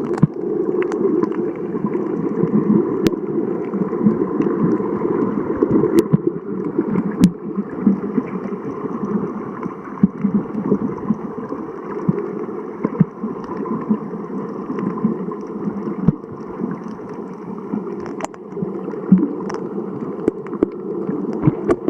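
Muffled underwater sound: a steady low gurgling water noise with scattered sharp clicks.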